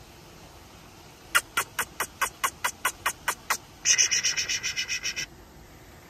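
A small wild animal calling: about a dozen sharp chips at roughly four or five a second, then a fast, high rattle lasting about a second and a half.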